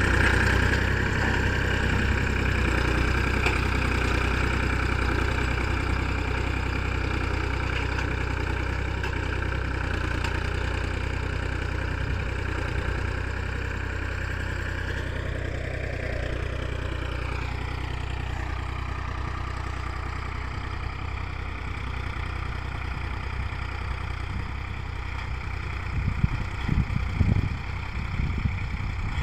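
Ford 3000 tractor engine running steadily under load as it pulls a heavy seven-disc implement through hard, stony ground, growing fainter as the tractor moves away. About halfway through, its pitch rises briefly and falls back, and a few low thumps come near the end.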